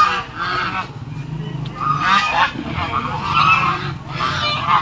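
A flock of domestic geese honking, with several separate honks from different birds as they walk.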